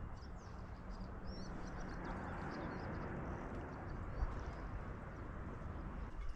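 Steady outdoor background noise with faint, high bird chirps scattered throughout.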